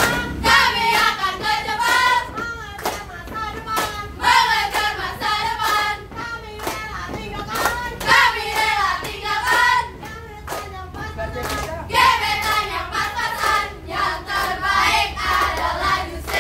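Group of young women chanting a yel-yel cheer in unison, with hand claps in time. The chant comes in loud phrases about every four seconds.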